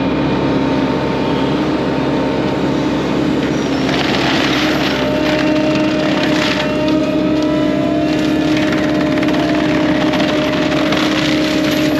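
FAE UML/HY-125VT forestry mulcher running on a hydraulic excavator: a loud, steady machine tone from the spinning rotor, hydraulics and engine, with surges of grinding noise several times as the double carbide teeth chew into wood and ground.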